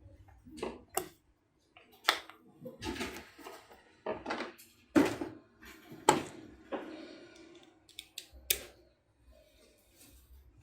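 Irregular sharp clinks and knocks of hard objects being handled and set down, with scraping between them, the loudest about five and six seconds in.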